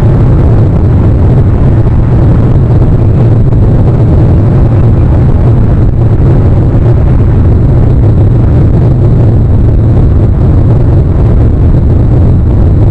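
Loud, steady low rumbling noise with no distinct events.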